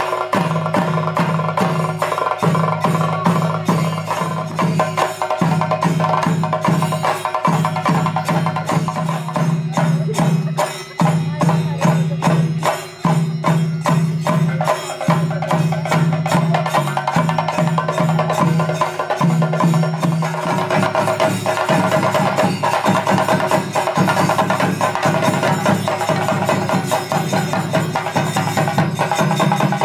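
Chenda melam: an ensemble of chenda drums played with sticks in fast, continuous strokes.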